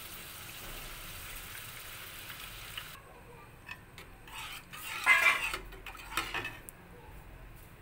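Spiced onion-tomato paste sizzling in oil in a kadai as it is stirred with a silicone spatula, then a few scrapes and knocks of the spatula against the pan, the loudest about five seconds in.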